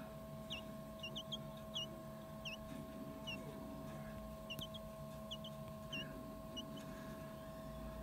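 Quail chick peeping softly: short, high chirps that fall in pitch, coming irregularly about two a second.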